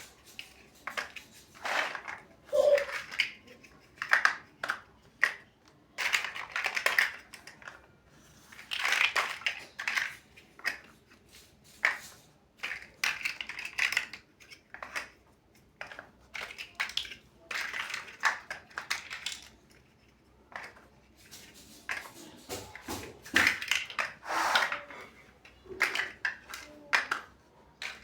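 Plastic building bricks being handled and snapped together, with irregular sharp clicks and short clattering bursts about every second.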